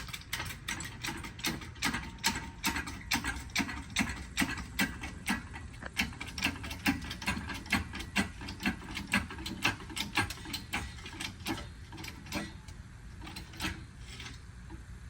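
Hydraulic floor jack being pumped to lift a car, giving a steady run of ratcheting clicks about two a second that fade out near the end.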